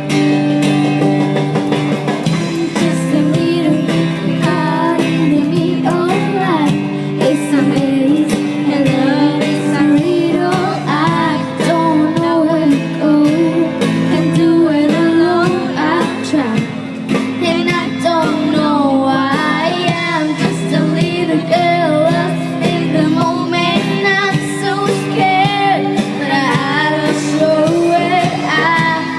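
Live pop-rock band playing a song with guitar, and a girl's singing voice over it.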